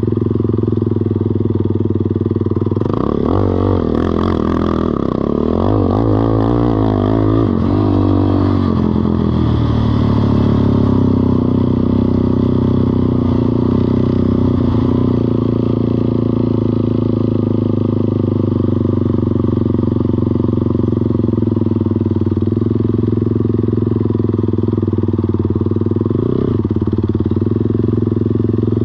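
ATV engine running. Its pitch rises and falls several times in the first third with the throttle, then it holds a steady speed, with two short rises near the end.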